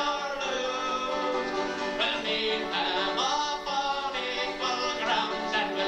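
Live Irish ballad: a man singing over strummed acoustic guitars.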